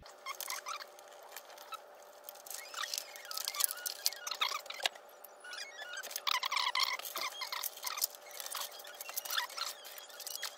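Bundles of 18 AWG Xconnect pigtail leads being handled and fished through holes in a plastic enclosure: an irregular clatter of plastic connectors and rustling wire, with a few short squeaks of wire rubbing.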